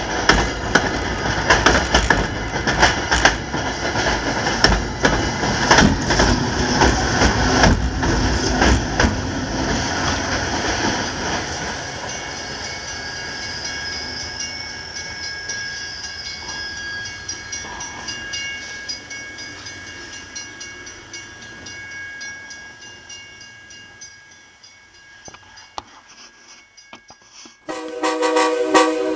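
MBTA commuter rail coaches rolling past close by, wheels clattering over the rail joints, the sound fading as the train pulls away. Near the end a train horn sounds loudly.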